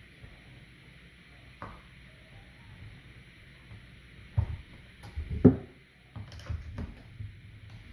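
Parts and tools of a ResMed AirSense 10 CPAP being handled during reassembly: scattered light clicks and knocks, the loudest about five and a half seconds in, with a quick run of lighter knocks near the end.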